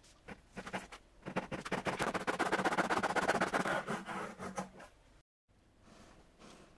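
Japanese dozuki backsaw cutting through black walnut: a fast, even rasp of the fine teeth, loudest in the middle and stopping about five seconds in. After a short break, a chisel paring wood in quieter scrapes.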